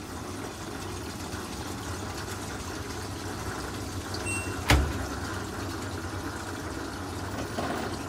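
LG WT7300CW top-load washer on its test-mode drain step: the drain pump runs with a steady low hum as water is pumped out of the tub. A single sharp clunk sounds a little past halfway.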